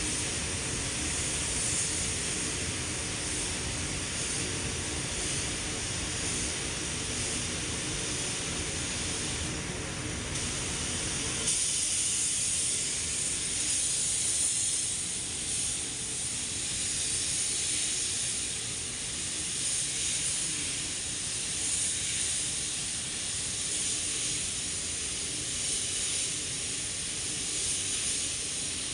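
Steady hiss of compressed air from a gravity-feed spray gun spraying car paint, with a lower hum underneath that drops away about twelve seconds in.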